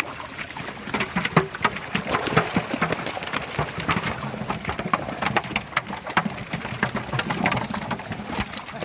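Fish thrashing at the water's surface inside a long net: a dense, irregular crackle of many quick splashes and slaps.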